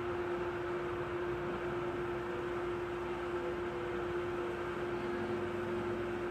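Steady hiss with a constant hum, unchanging and without any distinct events.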